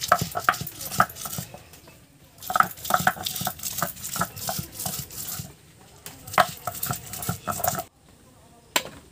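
Heavy stone roller (nora) rubbed back and forth over a stone grinding slab (shil), grinding whole spices such as ginger and turmeric into a paste. It gives quick gritty scraping strokes with small clacks, in short runs broken by brief pauses.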